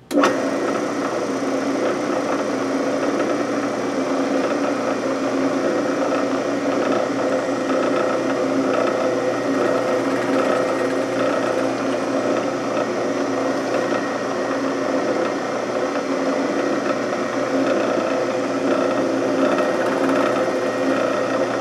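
Drill press switched on and running steadily while its countersink bit with pilot drill bores screw holes into a wooden block.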